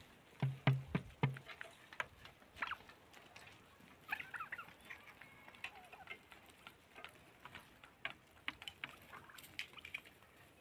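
Flock of domestic turkeys calling while they forage: a quick run of four short low notes about half a second in, then scattered clucks and short calls among light clicks.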